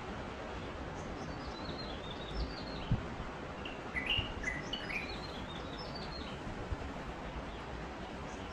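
Light-vented bulbul (Chinese bulbul) singing: a run of short chirping notes, loudest about four to five seconds in, over a steady background hiss.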